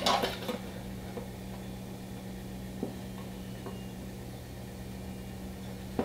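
A steel ruler clinks against the wooden panel as it is repositioned, then a few faint taps follow over a steady low hum.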